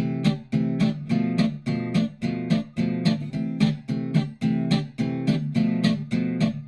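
Background music: an acoustic guitar strumming a steady, even rhythm.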